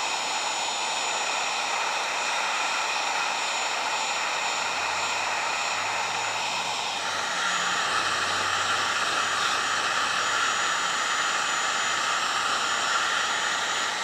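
Electric heat gun running on high heat: a steady blowing hiss with a fan whine. About halfway through its tone shifts and it gets slightly louder.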